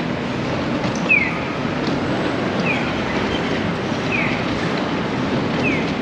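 Steady rumbling outdoor street noise, with a short high falling chirp repeating about every second and a half.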